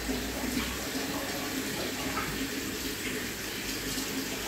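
Steady rush of water circulating in a large aquarium, pushed by its pump.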